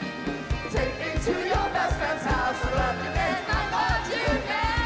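Live rock band playing with a steady kick-drum beat, under singers' wordless vocal runs. A long held sung note begins near the end.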